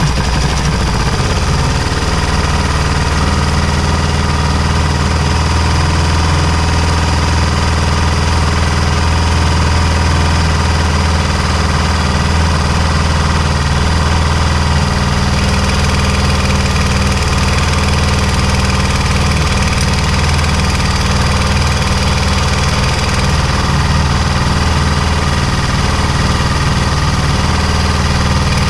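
Honda XR400's single-cylinder four-stroke engine idling steadily just after a cold start, with a strange knocking in the engine. The owner puts it down to a slack timing chain that the automatic tensioner is not holding.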